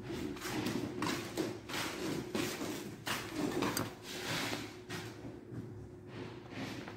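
Wooden cabinet drawers sliding in and out on spring-loaded metal drawer slides, a quick run of short rushing slides that thins out over the last couple of seconds.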